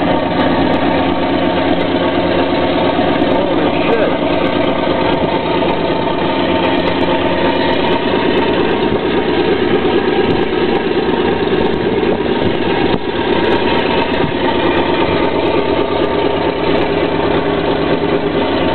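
Radial aircraft engine on a display stand, running steadily.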